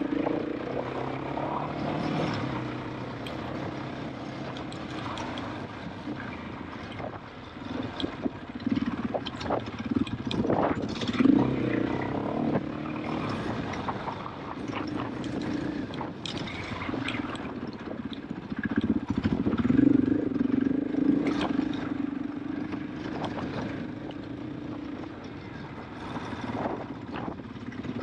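KTM 500 EXC-F enduro motorcycle's single-cylinder four-stroke engine pulling at low speed, the throttle opening and closing so the engine note swells and fades, loudest about eleven seconds in and again near twenty seconds. Frequent sharp knocks and clatters run through it.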